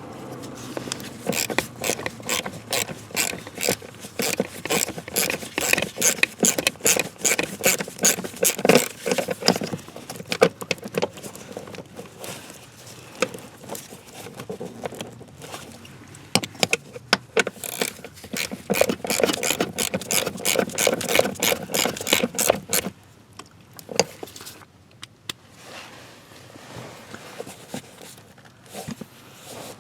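Hand tools and metal and plastic parts clicking and scraping in quick, uneven succession during a blower motor replacement. This goes on for about 23 seconds, then drops to a few scattered clicks.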